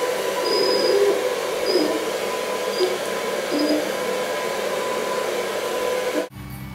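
Hand-held hair dryer blowing steadily, drying a wet puppy's coat, with a steady hum under the rush of air; it cuts off abruptly near the end.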